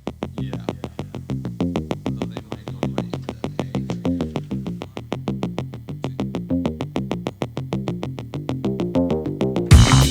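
Background electronic music: a fast run of short synthesizer notes over a stepping bass line, about eight notes a second, swelling louder and fuller with drums near the end.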